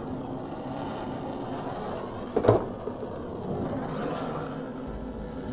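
Plumber's torch burning with a steady rushing hiss while it heats the copper shower head riser joint on a brass shower valve for soldering. A single sharp knock about halfway through.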